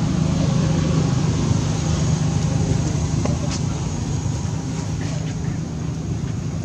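A steady low engine drone running without a break, like a motor vehicle running nearby, with a few faint clicks about halfway through.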